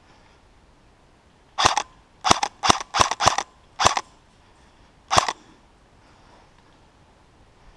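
Airsoft replica rifle firing seven sharp shots, irregularly spaced, starting about a second and a half in; the last comes alone after a short pause.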